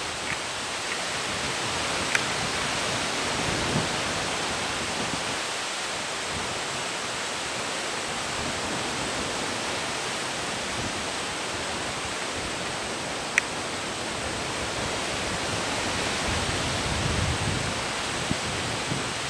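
Steady outdoor wind noise: an even rushing hiss, with a couple of faint clicks and some low buffeting on the microphone near the end.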